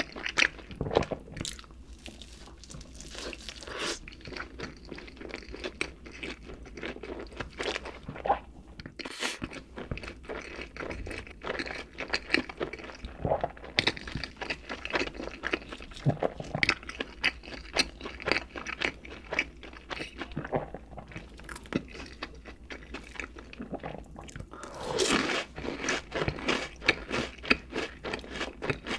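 A person eating: crunchy bites and wet chewing, a steady run of crackles and smacks, thickest for a couple of seconds near the end.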